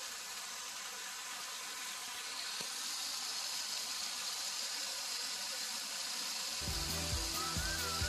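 Steady hiss of water spraying from splash-pad fountain jets. Music with a beat comes in about two-thirds of the way through.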